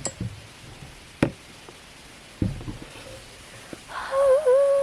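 Handling knocks on a handheld camera: three sharp knocks roughly a second apart over quiet background. Near the end comes a brief high wavering voice.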